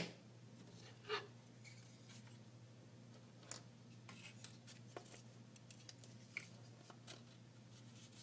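Faint, sparse clicks and taps of laser-cut plywood parts being handled and slotted together, sharpest right at the start and again about a second in, over a low steady hum.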